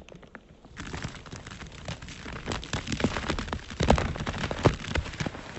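Diet cola erupting from its bottle after Mentos are dropped in: a fizzing rush of foam and spray starting about a second in, with the crackling patter of droplets falling back down and a few louder splats, dying away near the end.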